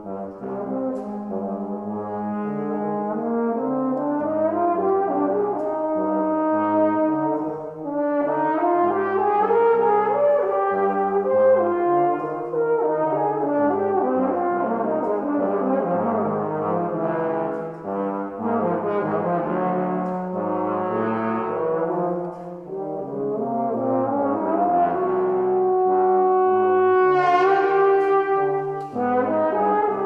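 Bass trombone and tenor trombone playing a duet: a low line of changing notes under a higher line, with sliding pitch glides in places.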